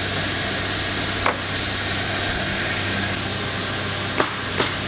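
CNC router running steadily as it cuts MDF panels, a constant machine noise with a low hum. A few sharp knocks sound over it, once about a second in and twice near the end.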